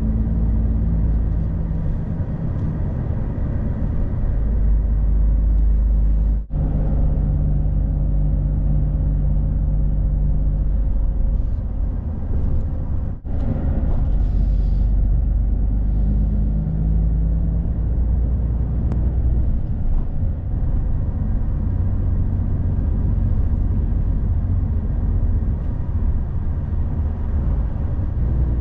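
Truck engine running with road noise as the lorry drives along, a steady low drone; the sound drops out briefly twice, about six and thirteen seconds in.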